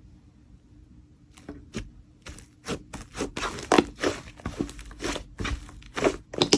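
Hands working slime: a run of short, sharp pops, crackles and squelches as it is pressed, stretched and poked, starting after a quiet second and coming thick and fast from about halfway on.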